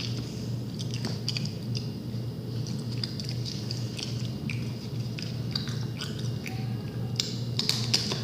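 Irregular crunchy clicks and crackles, a few each second and loudest near the end, over a steady low hum.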